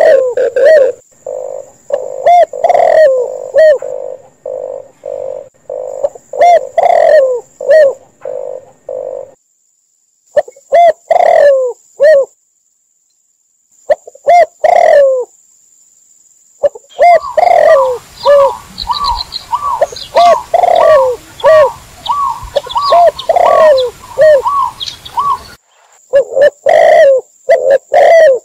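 Mixed calls of spotted doves, red collared doves and zebra doves: repeated short cooing notes in runs, broken by brief silences around 9 and 13 seconds in. From about 17 seconds a faster, higher run of coos plays over a background hiss.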